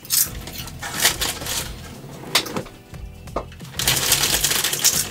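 A plastic chip bag crinkling and rustling as a hand reaches into it, with crunching of chips being eaten; the crinkling turns dense and continuous near the end.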